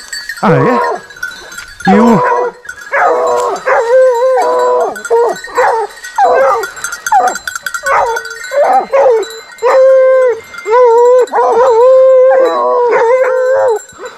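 Running hounds baying in long, drawn-out howling calls, again and again, at a wild boar they have cornered in thick brush.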